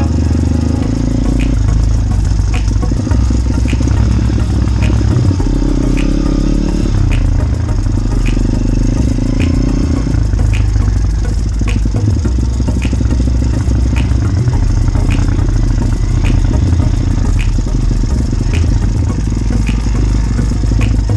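Motorbike engine running steadily while riding, with a faint tick about once a second.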